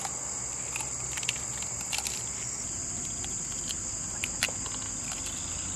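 Steady high-pitched chirring of insects, with a few short sharp clicks scattered through it.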